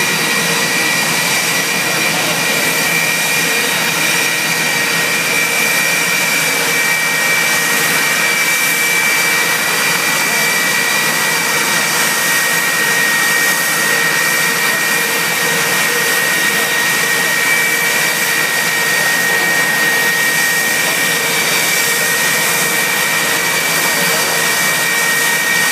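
Steady high-pitched jet turbine whine from a parked Sukhoi Su-35 fighter, two close piercing tones over a constant rushing hiss, holding level without rising or falling.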